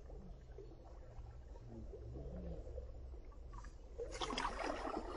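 Small waves lapping against the stones of a rocky lakeshore over a faint low rumble, with a louder wash of water over the rocks about four seconds in.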